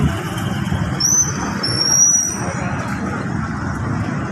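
Street traffic: a steady rumble of passing motor vehicles, with a thin high squeal that slides upward about a second in and lasts roughly a second and a half.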